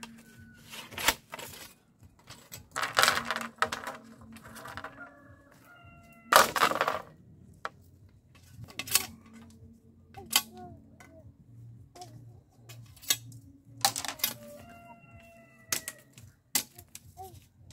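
A machete chopping and scraping split-bamboo strips: a run of sharp knocks and clacks with a few longer rasping strokes along the wood. Hens cluck in short calls several times between the strokes.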